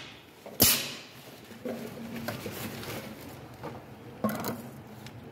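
Pneumatic bottle-filling machine: short, sharp hisses of compressed air venting from its valve actuators. There is one loud burst about half a second in and a quick double burst a little after four seconds, with lighter knocks from plastic bottle handling in between.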